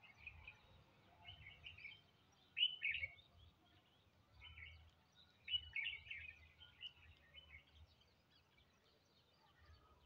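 House sparrows chirping in short scattered bursts, the loudest about three seconds in and again around the middle, over a faint low background hum.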